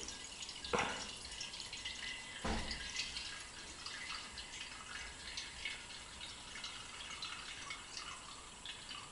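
Petrol pouring from a plastic bottle into a homemade moped's small metal fuel tank: a faint trickle and drip, with two light knocks about one and two and a half seconds in.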